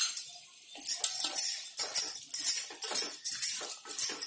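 A bare hand mixing salted, masala-coated goat head meat in an aluminium pressure cooker: quick, irregular squelching and scraping strokes, about three a second, starting about a second in.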